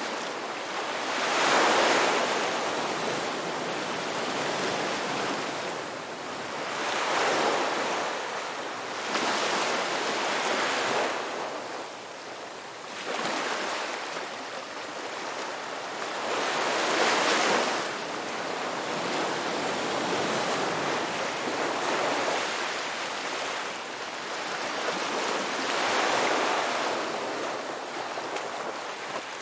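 Ocean waves breaking on a beach: surges of surf swell up and wash out every few seconds over a steady hiss of water, the loudest about two seconds in and about seventeen seconds in.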